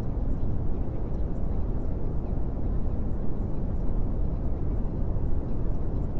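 Steady low rumbling noise with no distinct events, level and unchanging throughout.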